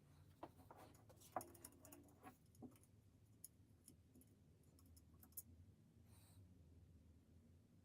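Near silence, with faint scattered clicks and light taps, several in the first three seconds and one more about five and a half seconds in.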